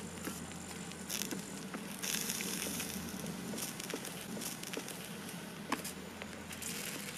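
Molten lead splashing onto chicken eggshells, sizzling and crackling with scattered small pops. There is a louder burst of hiss about two seconds in.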